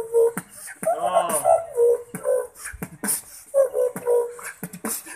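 Beatboxing: a held vocal tone under quick, rhythmic mouth clicks and snare hits, with a warbling, rising-and-falling vocal sound about a second in.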